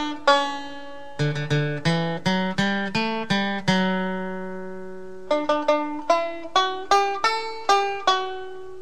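Background music played on a plucked string instrument: a run of picked notes, each fading after it is struck, with one note left ringing for about a second and a half midway.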